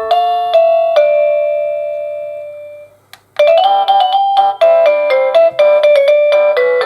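AVANTEK D-3B wireless doorbell receiver playing its electronic chime tunes. One melody ends on a long note that fades away, a brief click follows in a short gap, and the next tune starts at about the halfway point with quick notes.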